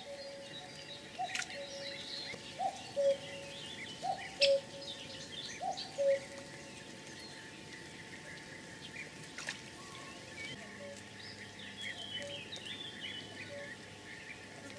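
Outdoor birdsong. One bird repeats a short low hooting note roughly once a second, plainest in the first six seconds and fainter afterwards, while other small birds chirp higher over a light background hiss.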